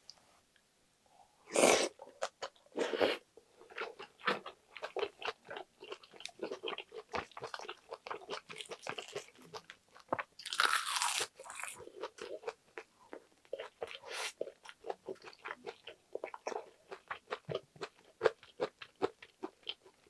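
Eating sounds of braised kimchi with pork belly and tofu: many short wet chewing clicks and bites. About ten seconds in comes a longer crisp crunch as a roasted seaweed (gim) wrap is bitten.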